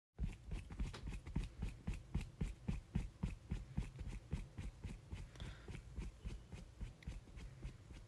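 Quick, even footfall sound effect, about four dull thuds a second, starting suddenly just after the start.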